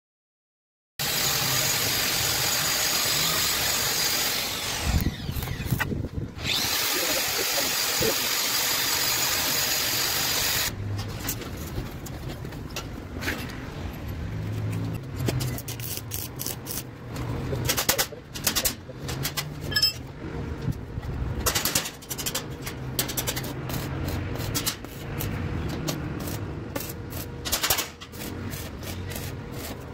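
A power tool runs steadily for about ten seconds with a high whine, winds down briefly and starts again. Then comes a stretch of scattered sharp clicks and knocks over a low hum from work on a steel railing.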